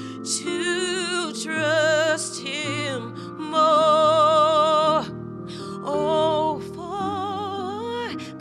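A woman singing a slow gospel hymn solo, in several long phrases of held notes with wide vibrato and sliding ornaments, over held accompaniment notes.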